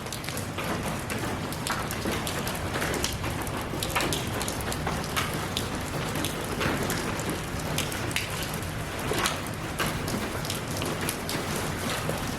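Steady rain falling, an even hiss with many individual drops pattering sharply on a surface close by.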